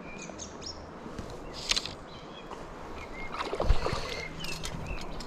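Water splashing and sloshing as a hooked brown trout fights on the line, with a couple of louder splashes, over running river water, with short bird chirps.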